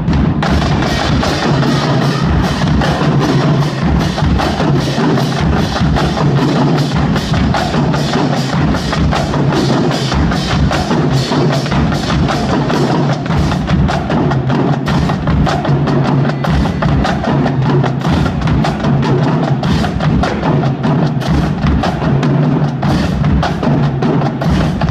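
Middle school drumline playing a fast, dense percussion cadence: a steady stream of rapid drum strokes over heavy low bass drum hits.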